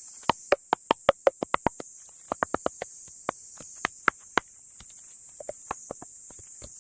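Split firewood logs knocking against each other as they are handled and stacked: a quick run of sharp wooden clacks in the first two seconds, then more in smaller groups and sparser ones. Insects chirr steadily in the background.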